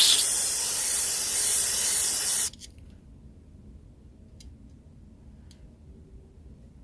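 A loud, even spraying hiss that stops abruptly about two and a half seconds in, followed by a low background with two faint clicks.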